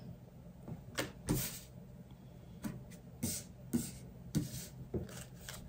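Oracle cards being handled on a table: laid down, slid and tapped together, giving about eight soft taps and brief rustles at uneven intervals.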